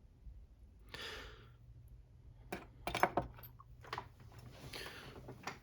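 Metal lock parts being handled as the cylinder core is drawn out of an Assa 600 lock: a few sharp metallic clicks with two short scraping slides, one about a second in and one near the end.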